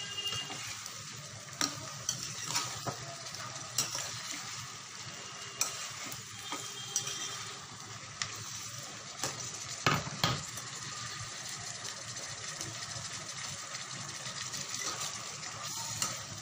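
Cluster beans and potatoes sizzling steadily in a frying pan, stirred with a steel ladle that scrapes and clinks against the pan several times, loudest about ten seconds in.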